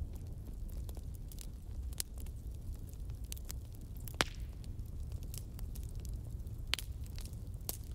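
Low, steady rumble with irregular sharp clicks and crackles, a few of them louder.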